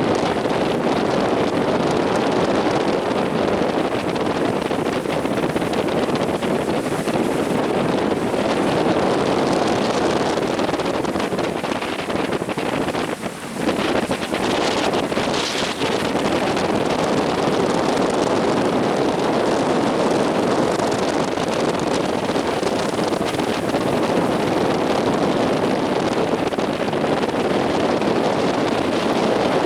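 Strong wind buffeting the microphone over the steady roar of big waves breaking. Just past the middle the noise dips for a moment, then swells into a short, hissier rush.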